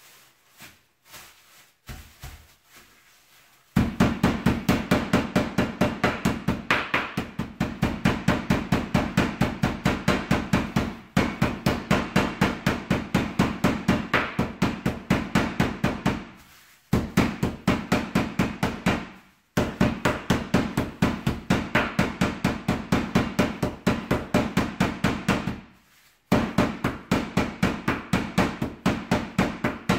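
Rolling pin pounding a pork schnitzel flat inside a plastic bag on a wooden cutting board: rapid, steady blows, several a second, starting a few seconds in and broken by a few short pauses.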